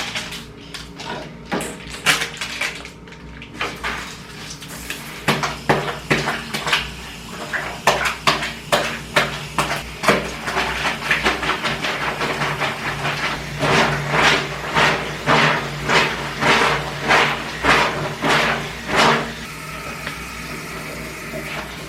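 Workout clothes being hand-washed: fabric rubbed and scrubbed in water in rhythmic strokes, about two a second, that stop a couple of seconds before the end.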